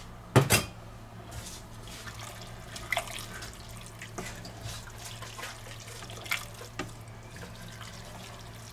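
Wooden spoon stirring wet leeks and minced meat in a stainless steel pot, a moist, watery stirring sound with a couple of sharp knocks against the pot about half a second in and scattered lighter scrapes and clicks after. A steady low hum runs underneath.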